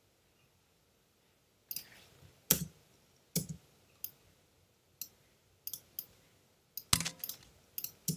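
Computer mouse clicking: a dozen or so sharp clicks at an uneven pace, some in quick pairs, starting about a second and a half in.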